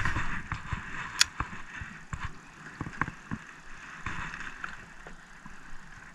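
Spinning fishing reel being cranked: a steady whir with many small clicks, plus scattered knocks.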